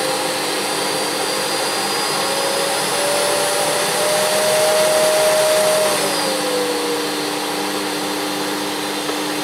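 Hoover Eco G (Telios) bagged cylinder vacuum cleaner's 1100-watt motor running steadily. Its pitch rises gradually from about two seconds in and falls back a few seconds later as the electronic power control is turned up and down.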